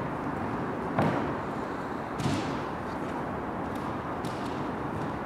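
A single thud about a second in, then a softer scraping sound just after two seconds and a few faint clicks, over a steady hiss.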